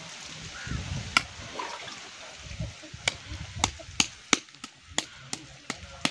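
Cooked ragi (finger-millet) dough being scooped from a pot and rolled into a ball by hand, with soft handling noise. About ten sharp, irregular clicks come in the second half.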